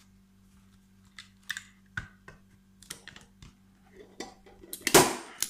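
Small clicks and knocks of handling as a Parkside spring-loaded manual staple gun is set on a piece of plywood, then the staple gun fires once with a loud, sharp snap near the end, driving a staple fully into the plywood.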